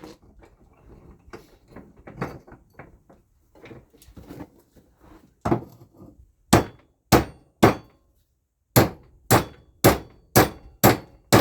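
Hammer blows driving a pipe joint piece together on a homemade exhaust pipe: a few light taps, then sharp, evenly paced strikes at about two a second after a brief pause.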